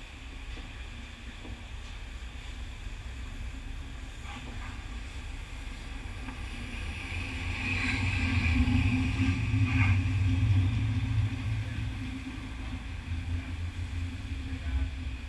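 Ice hockey rink sound during play: a steady low rumble with faint voices, swelling louder in the middle, and a couple of short sharp knocks.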